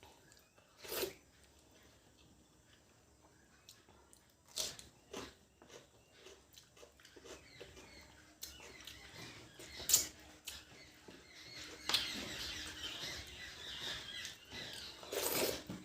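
Person eating mutton curry and rice up close: irregular wet smacks and clicks of chewing, busier in the last few seconds.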